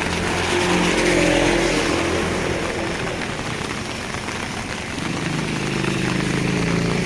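Two motor vehicles pass in the rain over a steady hiss of rainfall. Engine hum swells and fades about a second in, then a second engine comes up about five seconds in.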